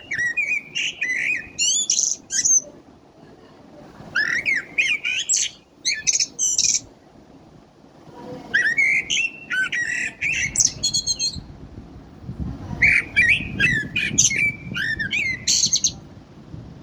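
A blackbird singing: four phrases of warbled notes with high twittering, separated by short pauses.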